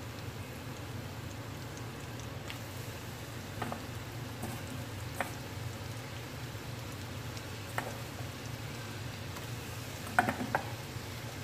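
Chicken pieces deep-frying in oil in an aluminium wok: a steady sizzle broken by occasional sharp pops, with a louder burst of pops about ten seconds in. A steady low hum runs underneath.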